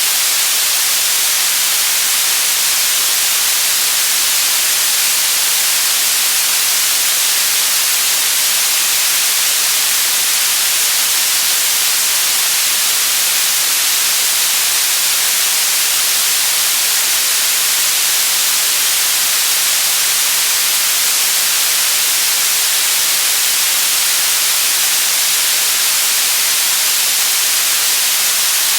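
Steady white noise: an even, unchanging hiss with its energy weighted toward the high end.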